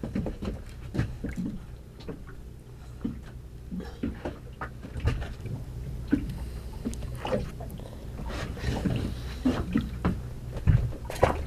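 Irregular knocks and clicks of a fish being reeled in and handled aboard a small boat, busier near the end, over a low steady rumble of wind and water.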